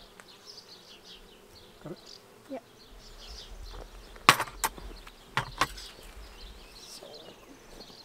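Honey bees buzzing steadily around an opened hive as a frame covered in bees is lifted out. A few sharp clicks or knocks come in the middle, four within about a second and a half.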